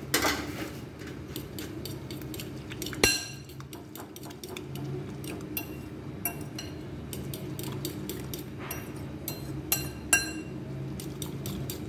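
Metal spoon clinking rapidly against a glass bowl as eggs and chopped vegetables are beaten for an omelette, with a sharper knock about 3 seconds in.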